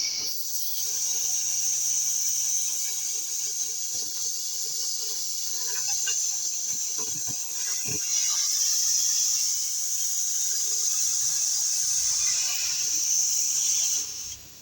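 Gas cutting torch cutting steel plate: a loud, steady, high-pitched hiss that cuts off suddenly near the end.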